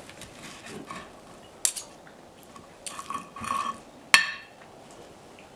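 Steel knife and fork scraping and clinking against a ceramic dinner plate while cutting food, with a few sharp clinks, the loudest about four seconds in.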